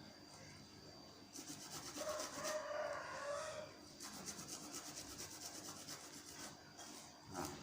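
Herbal ingredients being grated on a hand grater: rapid scraping strokes that start about a second and a half in, pause briefly near the middle and stop shortly before the end. A brief pitched call sounds in the background about two seconds in.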